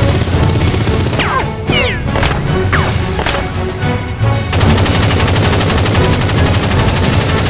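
Rapid gunfire, shots in quick succession like a firefight, over action music. A few brief whistling glides come through in the middle.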